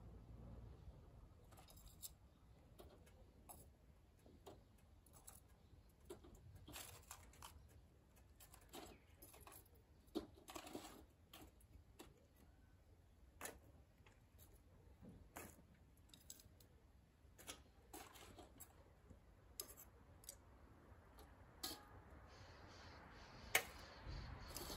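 Charcoal (briquettes mixed with ogatan binchotan) catching in a chimney starter: faint, irregular crackles and small pops, with one sharper pop near the end.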